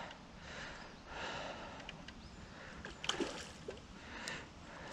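A man breathing heavily, a soft breath every second or so, with one brief sharp sound about three seconds in.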